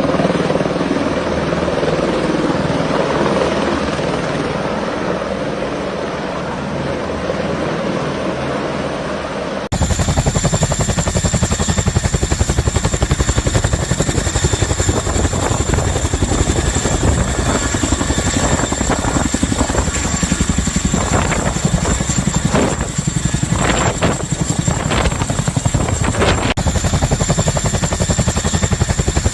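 Helicopter rotor and engine running loudly and steadily. About ten seconds in the sound changes abruptly to a closer, fast, even pulsing beat with a high steady whine over it.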